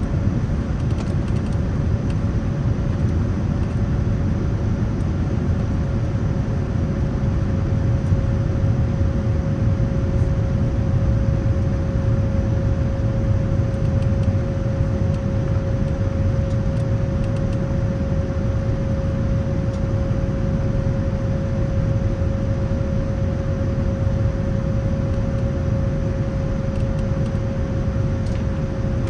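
Steady in-flight cabin noise of a Boeing 787-9 airliner: an even low rumble with a constant hum running through it.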